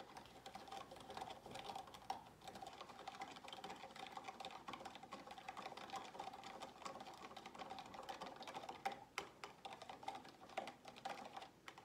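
A plastic knife stirring salt into water in a plastic cup: a fast, steady run of small clicks and scrapes against the cup, fairly faint, with a thin steady tone underneath. The stirring thins out into a few sharper taps near the end.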